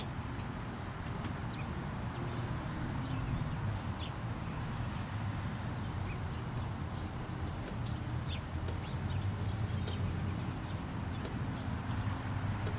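Outdoor pasture ambience: a steady low rumble, with a short run of quick, faint bird chirps about nine seconds in and a sharp click at the very start.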